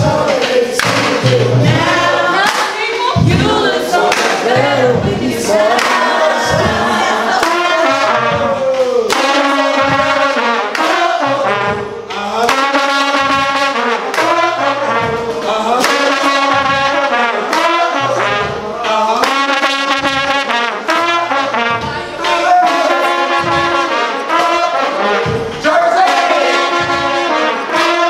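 Marching band trumpet section playing a loud tune together.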